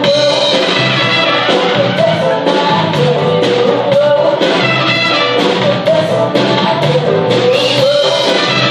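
Live band playing a soul-disco song, a woman singing lead over drums, electric guitar, keyboard and a horn and flute section.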